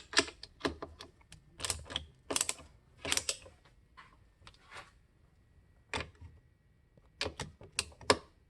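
Irregular run of sharp clicks and taps from a hand tool working the 5/16-inch screws on a water softener's valve head. The clicks come thick for about three seconds, thin out, and return in a quick cluster near the end.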